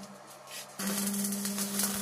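Stick welding on steel sheet: the arc strikes about a second in and then crackles steadily over a constant electrical hum from the welding machine.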